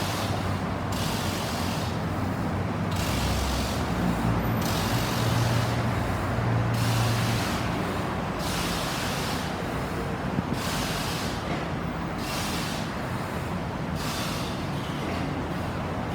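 Road traffic in the rain: a steady low engine rumble with the hiss of tyres on a wet road swelling and fading about every two seconds.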